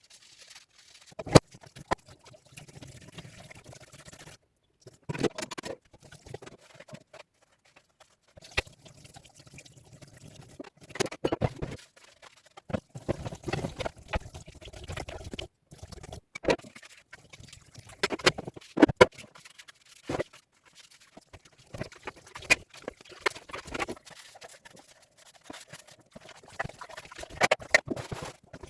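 Fridge shelves and drawers being hand-washed: repeated knocks and clatter of the parts being handled, over splashing and trickling water, with a few brief silent breaks.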